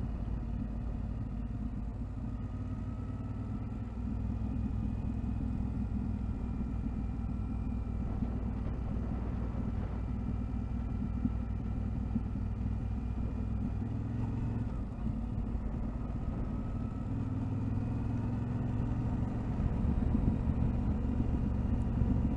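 Yamaha Ténéré 700 motorcycle's parallel-twin engine running steadily on the move, its pitch drifting slightly up and down; it gets a little louder near the end.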